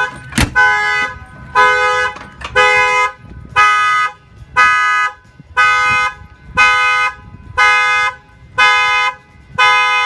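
Vehicle alarm set off by the side door opening, sounding the motorhome's horn in steady honks of about half a second, roughly one a second. A sharp click comes about half a second in.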